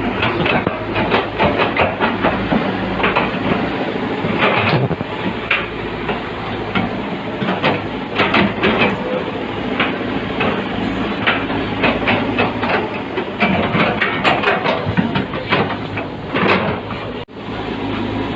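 Heavy diesel earthmoving machinery running steadily, with many irregular metallic clanks and rattles over the engine drone. The sound drops out briefly near the end.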